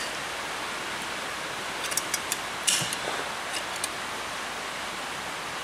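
Steady hiss of rain on a tin roof, with a few sharp clicks about two to three seconds in.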